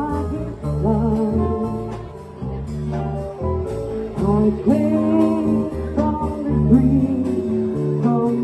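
Live jazz-blues band playing with a singer: a sung melody over a walking bass line, guitar and light cymbal ticks, poorly recorded.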